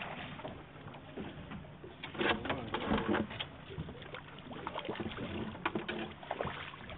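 Hooked striped bass thrashing and splashing at the surface beside a boat as it is brought in, over steady wind and water noise on a phone microphone. A cluster of louder, sharp splashes comes about two to three seconds in, with a few more near the end.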